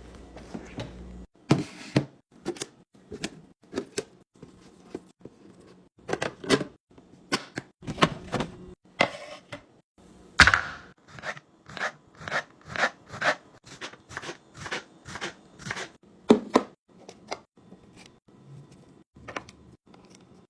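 Items being handled and set down in and around a refrigerator: a run of irregular sharp knocks, clicks and clatters, with a longer scraping rustle about ten seconds in.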